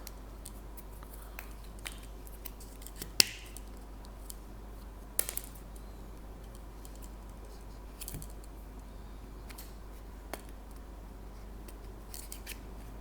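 Small clicks and light rattling of plastic tool parts being handled and fitted together, with a sharp click about three seconds in and another about five seconds in, over a faint steady hum.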